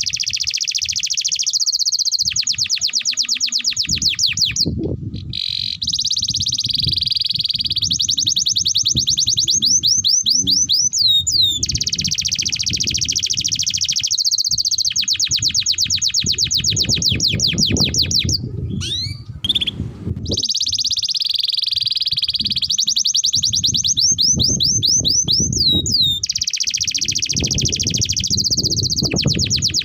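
Domestic canary singing long, nearly unbroken song phrases of fast rolling trills, with brief pauses between phrases; a low rumble runs underneath.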